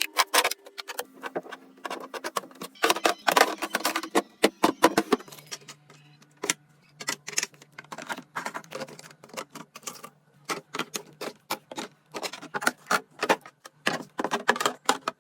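Plastic containers, jars and food packaging clicking, tapping and rustling as they are handled and set into a refrigerator, in quick irregular bursts.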